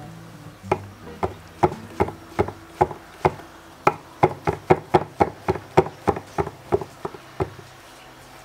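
Chef's knife slicing button mushrooms, each stroke knocking on a wooden cutting board: about twenty sharp knocks, at first two or three a second, then quickening to nearly four a second in the middle, stopping about a second before the end.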